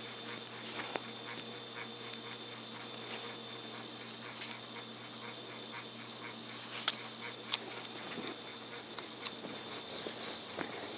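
A kitten scrabbling and pouncing on a quilted comforter: soft rustling with scattered small clicks and taps, a few sharper ticks in the second half. A steady hum and hiss lies underneath.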